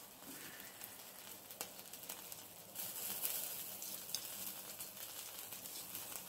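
Sausages sizzling on a wire grill over barbecue coals in a small Hexi stove, a steady hiss that swells for a moment about three seconds in, with a few light clicks.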